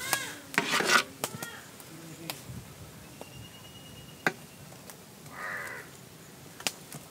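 Birds cawing, with two harsh calls within the first second and another about five seconds in, plus a few sharp taps in between.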